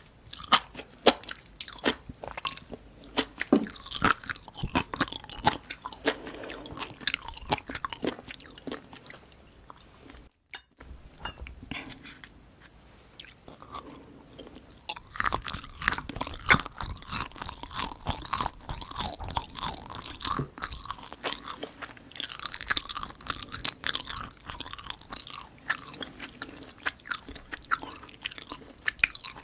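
Close-miked chewing and biting, with irregular crunches and wet mouth clicks. The sound breaks off briefly about ten seconds in.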